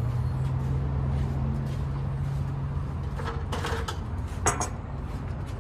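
A steady low hum, with the clinks of metal gazebo frame parts being handled a little past halfway and one sharp knock near the end.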